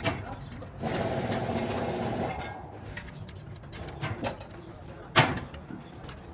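Metal clinks and knocks of wheel nuts being threaded onto a truck's wheel studs by hand, with one sharp knock about five seconds in. For about a second and a half near the start a steady mechanical noise runs underneath.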